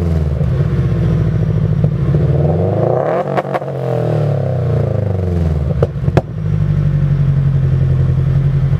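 Loud exhaust of a Subaru BRZ / Scion FR-S / Toyota GT86's 2.0-litre flat-four, the revs rising and falling several times. Two pairs of sharp cracks come midway, after which the engine settles into a steady drone.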